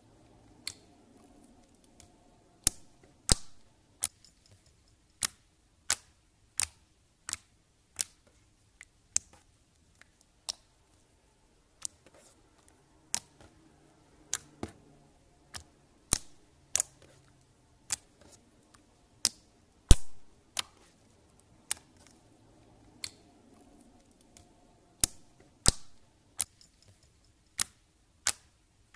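Slime being pressed and squeezed by fingers, making sharp pops and clicks of trapped air at irregular intervals, about one every half second to a second.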